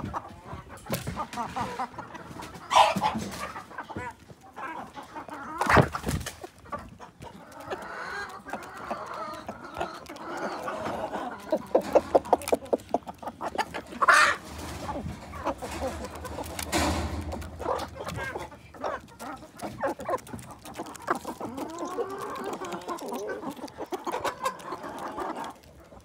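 Salmon Faverolles hens clucking steadily as they feed, with a quick run of taps about halfway through and a few sharp knocks.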